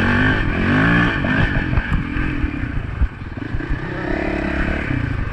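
Honda dirt bike engine under way on a dirt trail, revving up in the first second or so, easing off about three seconds in, then revving up again near the end, with rattles and knocks from the bike over the bumps.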